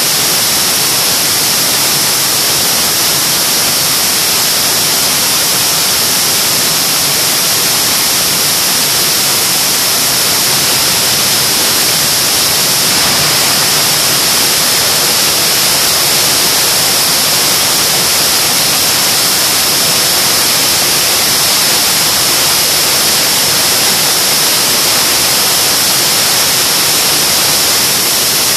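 General Electric J79 axial-flow turbojet running steadily on a test stand: a loud, even rush of jet noise with a strong high-pitched hiss on top.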